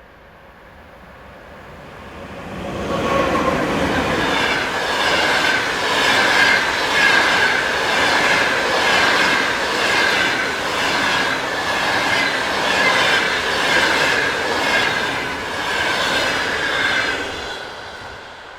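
Passenger train hauled by an electric locomotive passing at speed: a rise as it approaches, then a long stretch of rapid, regular wheel clicks over the rail joints with a steady high-pitched ring from the wheels, fading as it draws away near the end.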